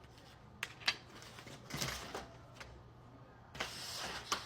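Poster paper and board being handled and slid into place: rustling and rubbing, with a few sharp clicks and taps.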